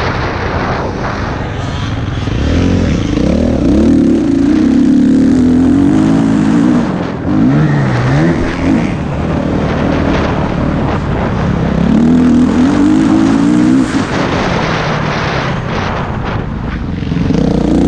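A vehicle engine revving, its pitch rising and falling several times as it speeds up and slows, loudest from about three to fourteen seconds in and picking up again near the end.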